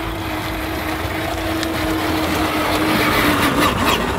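Minnie Mouse electric ride-on toy car driving along a concrete sidewalk: a steady motor whine with its plastic wheels rumbling over the pavement. The whine stops near the end.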